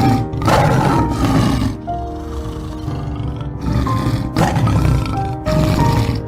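A large animal's rough roaring calls, about five in all with a pause around the middle, over background music with sustained notes.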